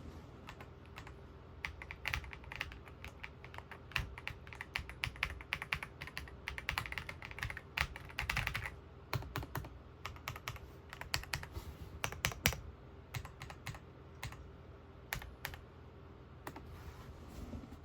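Typing on a mechanical keyboard during a sound test: fast runs of keystroke clicks broken by short pauses, thinning out near the end.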